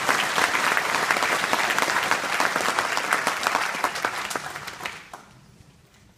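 Audience applauding, many people clapping together, dying away about five seconds in.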